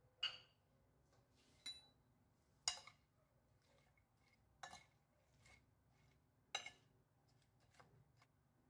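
Utensil clinking against a ceramic plate while tossing a salad: about half a dozen sharp, irregularly spaced clinks, some with a brief ring.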